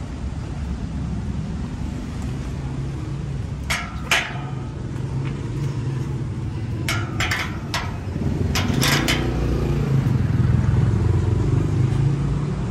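A metal bar gate clanking as its latch is worked and it is pushed open: a few sharp metallic clicks and clacks in three short clusters. Under them runs a steady low rumble of vehicle traffic that grows louder in the second half.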